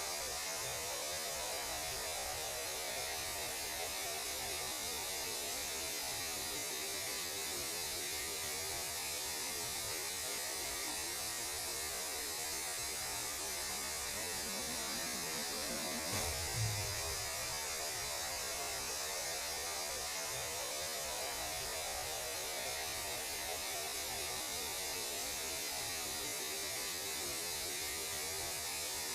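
Steady electronic hiss and hum of radio noise presented as the sound of space, with a brief low thump about halfway through.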